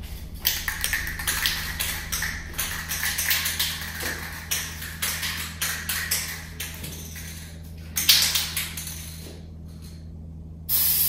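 Aerosol can of frosted-glass spray paint hissing as it is sprayed onto door window glass in a series of short bursts. A louder, steady hiss starts suddenly near the end.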